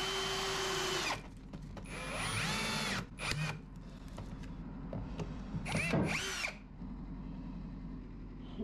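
Cordless drill running in four short bursts, its motor pitch rising as it spins up, drilling pilot holes and driving screws into a wooden batten.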